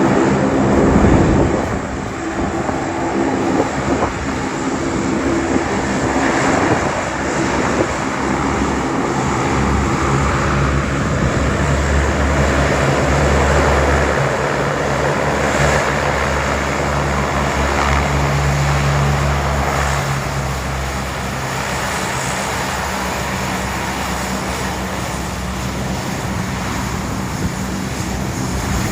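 Airliner engines running, a steady drone with a low rumble that swells in the middle, over a constant rush of wind noise on the microphone.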